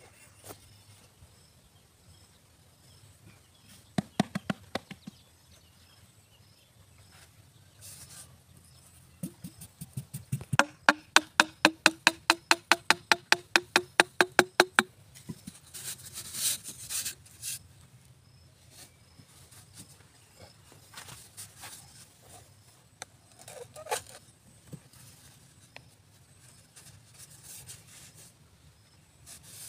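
Hand hoe chopping and scraping into dry dirt, with scattered knocks. The loudest part is a fast run of knocks, about four or five a second for several seconds, each with a short hollow ring that climbs in pitch, followed by a brief hissing scrape of loose soil.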